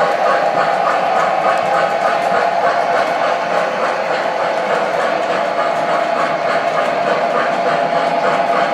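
O scale model trains running on the layout: a steady whirr of wheels and motors on the track, with an even clicking of about three to four a second over it.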